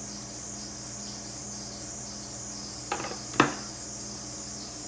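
Fry bread dough frying in hot oil in an electric skillet: a steady high sizzle. About three seconds in, metal tongs clack twice, the second sharper and louder, as they are set down on the countertop.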